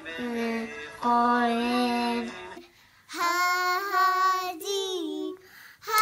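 Young children singing in turn: a boy sings two long held notes, then, after a short break about two and a half seconds in, a girl sings higher, drawn-out notes.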